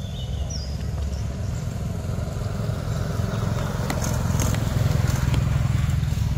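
Low rumble of a motor vehicle's engine, growing louder from about four seconds in, with a few sharp clicks around the same point.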